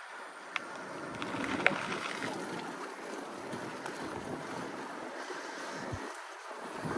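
Wind rushing over the microphone while riding a bicycle along the street, a steady noise with a few sharp clicks.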